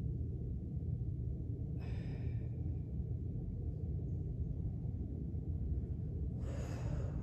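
A person breathing hard from exertion: two forceful exhales, one about two seconds in and one near the end, over a steady low hum.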